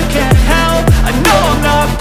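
Background music: an electronic hip-hop beat with deep kick drums that drop in pitch, about two a second, over a steady bass and a synth melody.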